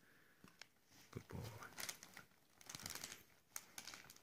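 Small dog gnawing a braised pork trotter bone on newspaper: faint, irregular clicks and crunches of teeth on bone, with the newspaper crinkling under it.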